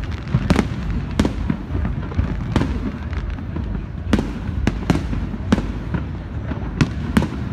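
Aerial fireworks bursting: about ten sharp bangs at uneven intervals over a steady low rumble.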